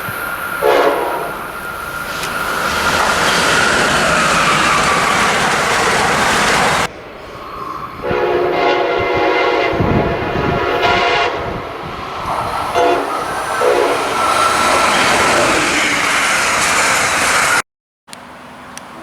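Locomotive horns sounding over the rumble and clatter of passing trains, across several short recordings cut together. A short horn blast comes about a second in, a long multi-note horn chord from about 8 to 12 seconds, and another short blast soon after. The sound cuts out abruptly for a moment near the end.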